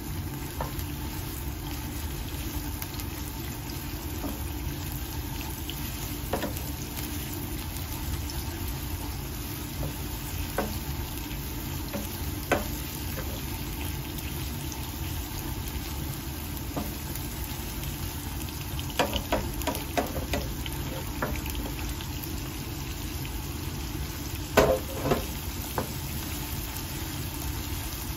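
Sliced onion sizzling steadily in hot oil in a nonstick frying pan, stirred with a wooden spatula that now and then knocks against the pan, with a cluster of louder knocks near the end.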